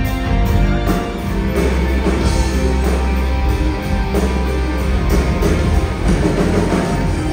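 Live rock band playing loudly: electric guitars, bass guitar and a drum kit.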